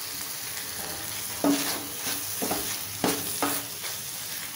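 Thick cauliflower masala sizzling in a pan while a wooden spatula stirs it, with about four sharp knocks of the spatula against the pan from about a second and a half in.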